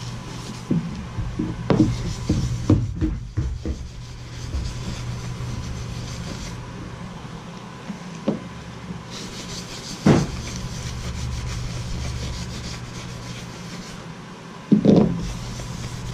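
Paper towel rubbing wax onto resin-and-coloured-pencil ornaments, with a few sharp knocks as the pieces are handled and set down on the rubber mat. Under it runs a steady low hum, and a short pitched sound comes near the end.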